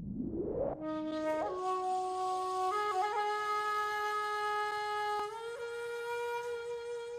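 Music: a rising whoosh leads into a single held wind-instrument note, which steps up in pitch a few times and is sustained throughout.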